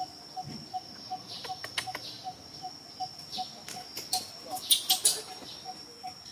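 Outdoor ambience of insects and birds: a steady high insect drone, with a short low call repeated about three times a second. A few brief sharp sounds come through the middle, the loudest pair about five seconds in.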